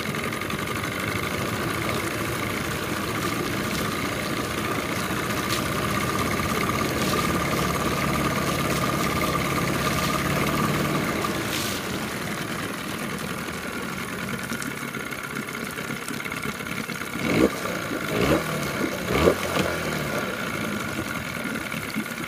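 1998 Johnson 9.9 hp two-stroke outboard running at low speed in a test barrel, its water churning. The engine picks up a little for a few seconds around the middle, then drops back. A few short, sharp louder sounds come near the end.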